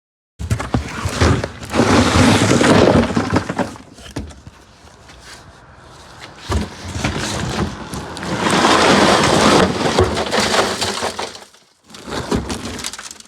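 Something being smashed: crashing and crunching breakage, in two loud spells, the first starting about half a second in and the second about eight seconds in, with a quieter rattle of debris between.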